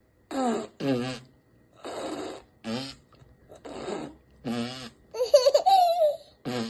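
A rapid string of short comic voice sound effects, mostly laughs and squeals. They come as about eight separate bursts, each cut off sharply. The loudest and longest, a wavering laugh, comes about five seconds in.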